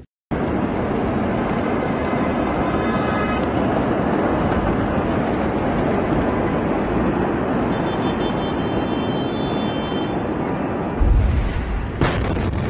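Beirut port explosion heard from a street: a continuous rumbling roar, then a heavy low boom near the end.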